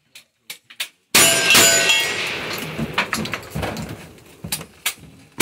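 A few light clicks as the rifle is handled. Then, from about a second in, a fast string of rifle shots at steel plate targets, the plates ringing after each hit under the heavy gunfire. Thick smoke hangs over the targets, the sign of black-powder loads.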